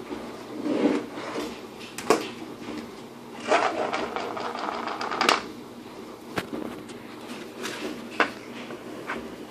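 Clicks and knocks of things being handled, with a quick rattling run in the middle and a few sharp taps.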